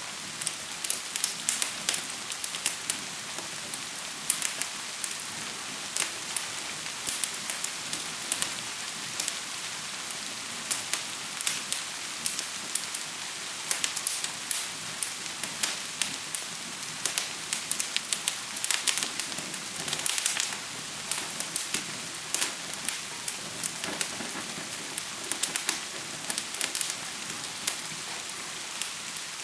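Steady rain hiss with a fire crackling over it: frequent sharp, irregular pops and snaps, often in quick clusters.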